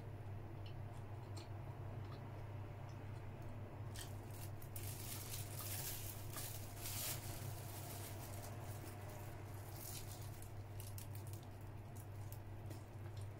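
Close mouth sounds of chewing a soft cream bun, with small wet clicks, and a stretch of rustling and tearing about four to seven seconds in as the bun is handled and pulled apart. A steady low hum runs underneath.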